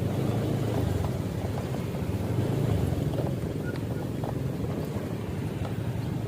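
A motor engine running steadily with a low, even rumble and a few faint ticks.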